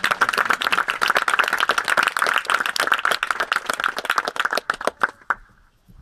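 Audience clapping: dense applause that dies away about five seconds in.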